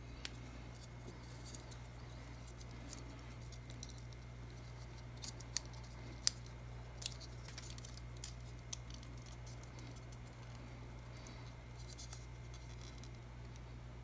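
Plastic parts of a 1/12 scale model motorcycle frame and engine being handled and pressed together by hand: a scatter of light clicks and small rustles, the sharpest about six seconds in, over a steady low hum.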